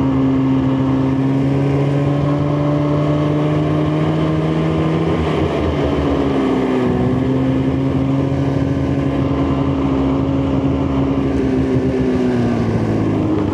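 Snowmobile engine running at a steady cruising speed, with the pitch dropping briefly about halfway through and easing off near the end.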